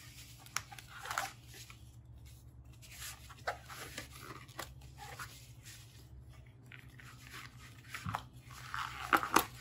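Handling noise as a soldering iron and its cord are worked out of the elastic straps of a fabric zip case: scattered rustles and scrapes of fabric, cable and plastic, with a louder cluster near the end. A low steady hum runs underneath.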